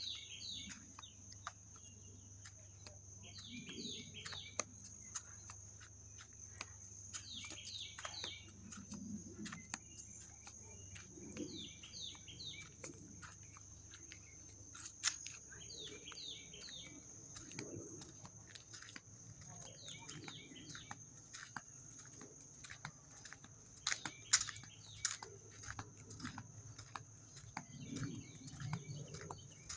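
A bird calling again and again, a short burst of several quick notes about every four seconds, over a steady, high-pitched insect drone; faint and outdoors-quiet overall.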